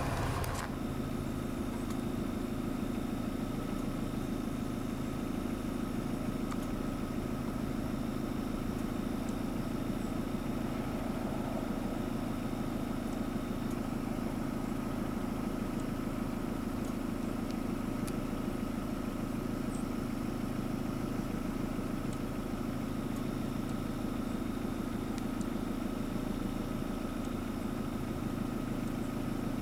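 Vehicle engine idling steadily: a continuous, even low hum with a faint higher whine above it.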